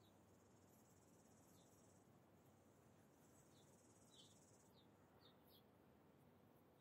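Near silence: faint outdoor ambience with a high, thin insect trill that stops about two-thirds of the way through, and a few brief, faint bird chirps.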